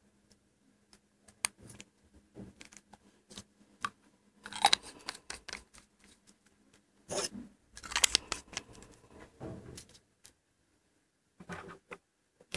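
Close handling of a Pilot 78G fountain pen: small clicks and scrapes of its plastic barrel and section being twisted and handled, with louder spells of scraping a few times.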